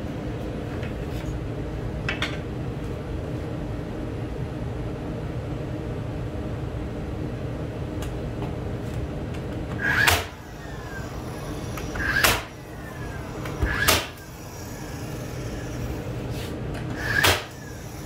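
Cordless DeWalt nailer firing four times into wood trim in the second half. Each shot is a sharp bang preceded by a short rising whir, over a steady background hum.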